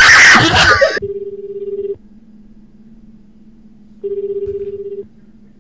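A loud, noisy burst in the first second, then the ringback tone of an outgoing phone call: two steady one-second rings about three seconds apart, over a faint steady hum.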